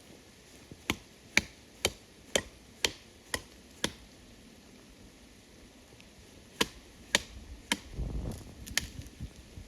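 A hand tool striking wood with sharp, evenly spaced blows, about two a second, seven in a row. After a pause come three or four more, with a duller low thump about eight seconds in.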